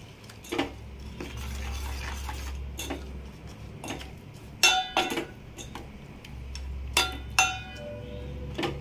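Water poured into a steel pot of oats, then a steel ladle stirring the mixture and clinking sharply against the pot several times, each clink ringing briefly.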